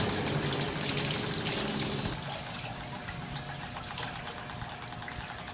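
Water trickling and pouring from the seat joint of a large ball valve clamped in a hydrostatic valve test bench, over a low machine hum that stops about two seconds in.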